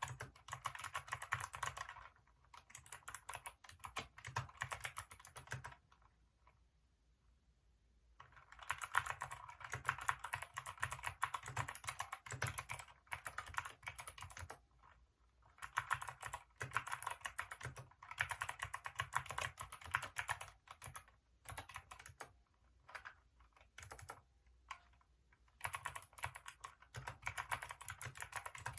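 Typing on a Hacker K611 mechanical keyboard with Kailh optical switches: rapid runs of key clicks in bursts, with a pause of about two seconds some six seconds in and a few shorter breaks.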